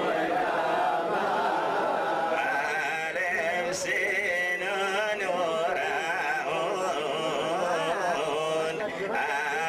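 A group of men singing a Jewish liturgical chant together, their voices wavering through long melodic lines. There is one brief click a little before the middle.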